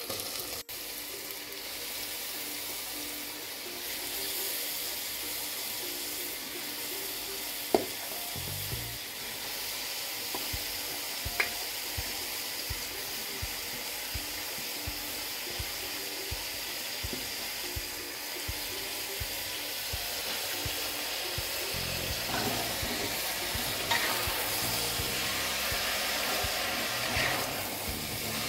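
Grated bottle gourd sizzling as it hits hot spiced masala in an aluminium pressure cooker, a steady frying hiss. There are a few sharp knocks of a metal spoon on the pot, the loudest about eight seconds in, and busier stirring toward the end.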